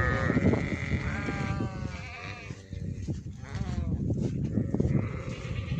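Goats bleating: several separate calls, one trailing off at the start, a louder one about a second in that falls in pitch, and fainter ones after it, over steady background noise.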